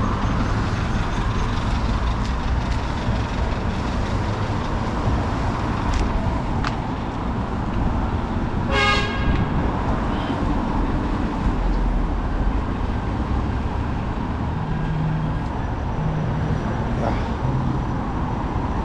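Steady road traffic going by, with one short car horn toot about halfway through.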